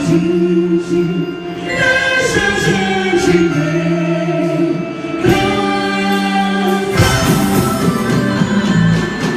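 Festa junina quadrilha music with several voices singing together in sustained, gliding notes. About seven seconds in, the music turns fuller and noisier.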